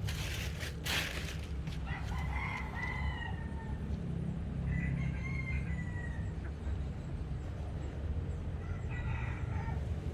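A rooster crowing twice, a few seconds apart, with a shorter call near the end, over a steady low rumble.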